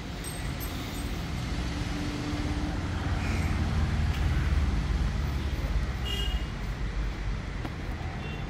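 Steady low outdoor rumble that rises and falls a little, with faint short high squeaks about three and six seconds in.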